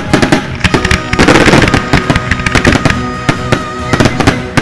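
Fireworks display: a dense run of sharp firework bangs and crackles, several a second, over a loud music soundtrack with a held note.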